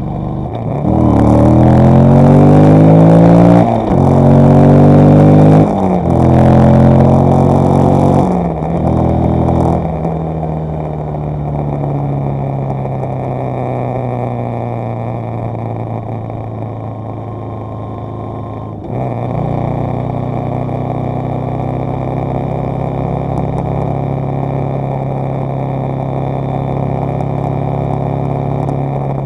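Vehicle engine accelerating hard through the gears, its pitch climbing and then dropping sharply at each of three upshifts in the first ten seconds. It then runs steadily at cruising speed, with a brief lift off the throttle about two-thirds of the way through.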